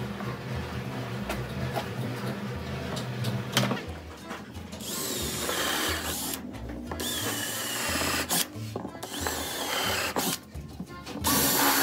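Makita cordless drill boring holes into a wooden frame, in about four short bursts of motor whine and bit cutting wood, beginning about halfway in, over background music.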